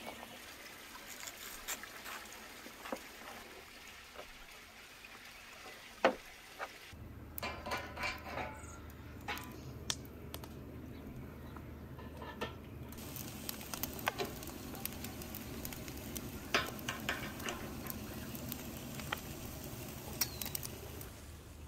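Wet clicking and squelching as a knife works through raw marinated chicken. About seven seconds in this gives way to a steady low rumble with crackling and sizzling from a fire-filled barrel grill roasting hung whole chickens.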